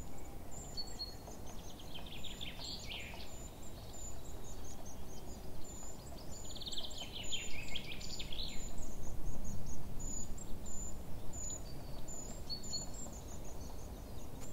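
Woodland ambience with birds singing: a thin, high chirp repeats about twice a second throughout, and a rapid descending trill sounds twice, once a couple of seconds in and again about halfway through, over a steady low rumble of wind.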